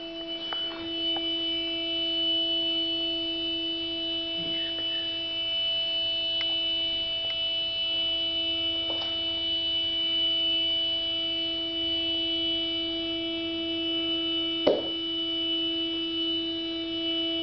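A vehicle horn sounding continuously at one unchanging pitch, from the burning truck. Two short knocks come through it, one about halfway and one near the end.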